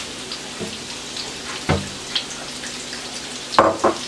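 Fish fillets shallow-frying in hot oil in a skillet: a steady sizzle with scattered small pops. There are a couple of louder knocks, one about halfway and one near the end.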